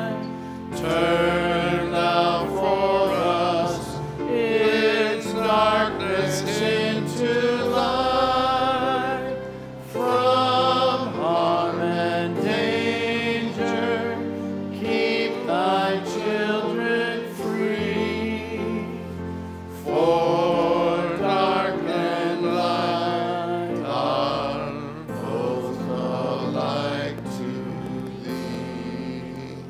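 Congregation singing a slow hymn verse with sustained instrumental accompaniment. The last note dies away near the end.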